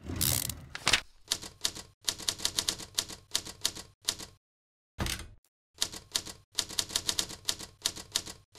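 Rapid mechanical clicks, like typewriter keys being struck, about eight a second in runs of a second or two with short pauses. The run opens with a brief rasping noise and a sharp click about a second in.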